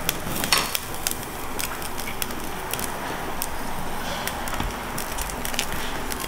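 Korean barbecue tabletop grill sizzling and crackling under a thick piece of filet mignon on the wire grate, flames licking up from below, with many small pops throughout.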